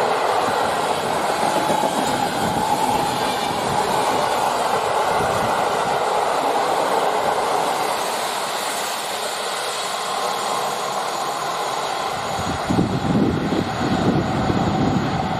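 Intercity passenger coaches rolling past at speed on the near track: a steady rushing noise of wheels on rail with a humming note, easing a little as the last coaches go by. About twelve seconds in, wind starts buffeting the microphone.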